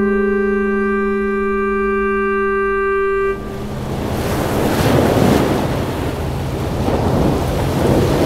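A single held, woodwind-like note of background music ends abruptly about three seconds in. A swelling rush of sea waves and wind takes over, rising and falling, with a low steady hum beneath it.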